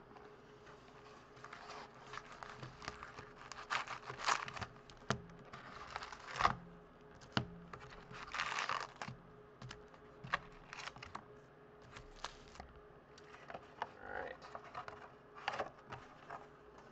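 Foil-wrapped trading card packs rustling and crinkling as they are lifted out of a cardboard box and stacked, with a few sharp taps as packs are set down on the table.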